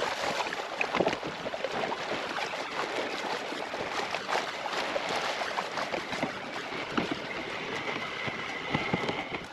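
Water lapping and splashing against the hull of a Hobie kayak as it moves through shallow, choppy water, a steady wash with scattered small slaps.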